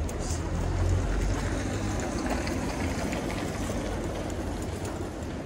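City street ambience: a steady low rumble of traffic, heaviest in the first second or so, with faint scattered clicks like footsteps.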